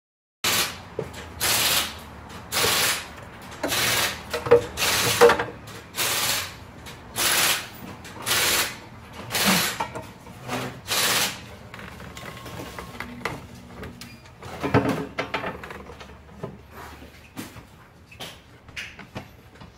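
Hand work on a car's front end: about a dozen short, harsh noisy strokes roughly once a second, then quieter scattered clicks and knocks.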